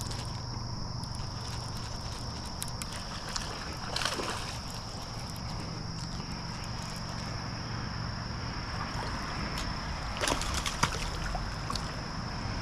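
Water splashing as a hooked bass thrashes at the surface close to the bank. There is one splash about four seconds in and a louder flurry of splashes around ten seconds in.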